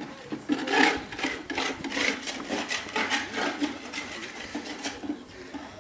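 Rhythmic scraping strokes, about three a second, of a hand tool working mortar. The strokes stop shortly before the end.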